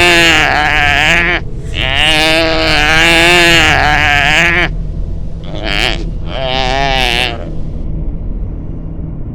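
An animal bleating in four long, wavering calls; the second lasts about three seconds and the third is short. A low steady drone runs underneath.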